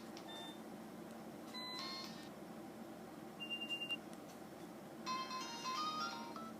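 Alcatel A205G cellphone playing ringtones through its small speaker: a few short, separate electronic tones, then about five seconds in a quick, high-pitched melodic ringtone starts.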